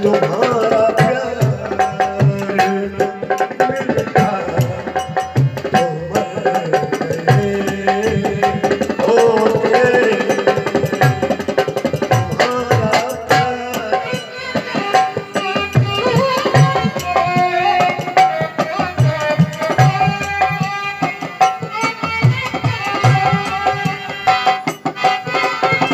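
Instrumental interlude of a ghazal: a dholak keeps a steady rhythm under a sustained keyboard and harmonium melody.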